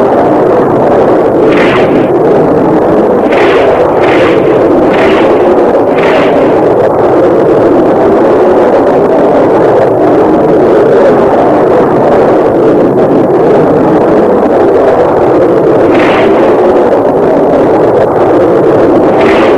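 Jet aircraft engines running with a loud, steady roar, broken by short hissing bursts several times in the first six seconds and again near the end.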